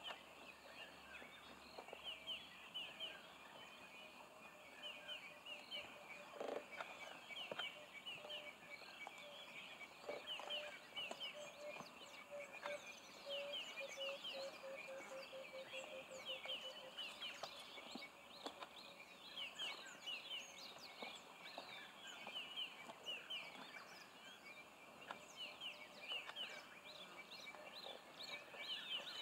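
African wild dogs giving their high, bird-like twittering calls over a kill: many short quick chirps in rapid series, with a few soft clicks among them.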